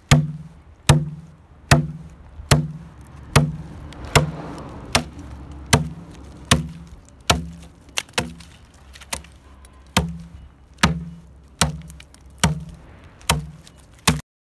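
Hafted stone axe, a narrow round-chisel-edged stone blade lashed to a wooden handle, chopping into a log to hollow it: a steady run of about eighteen dull wooden blows, a little more than one a second.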